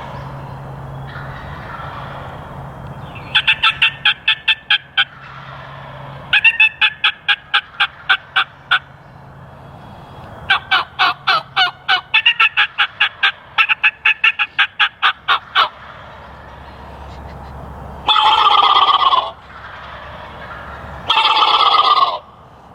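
Wild turkeys calling: three runs of rapid, sharp repeated yelping notes, then two loud gobbles near the end, about three seconds apart.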